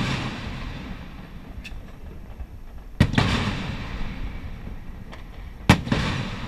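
Aerial firework shells bursting: loud sharp bangs about three seconds in and again near the end, each fading out over a second or two.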